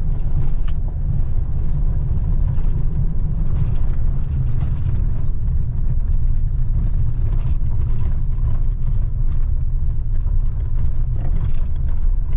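Vehicle driving: a steady low rumble, with scattered small ticks and crackles over it.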